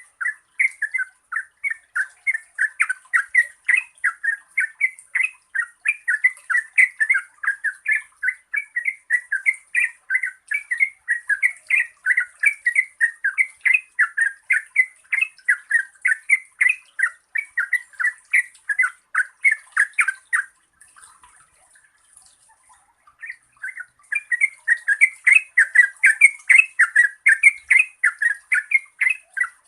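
Yellow-vented bulbul (trucukan) singing a long run of quick, bubbly chattering notes, about three a second. The song breaks off for a few seconds about two-thirds of the way in, then starts again.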